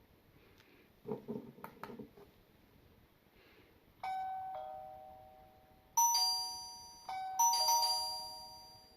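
A wireless video doorbell's electronic chime sounding a falling two-note ding-dong three times, each ring starting sharply and fading away, the second and third coming close together. A short burst of clicks and knocks, like the unit being handled or its button pressed, comes a few seconds before the first ring.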